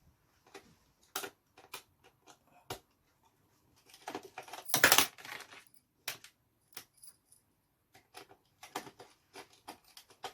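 Small clicks and taps of a screwdriver working the captive screws of a laptop's hard drive cover, with a louder brief scraping rattle about five seconds in.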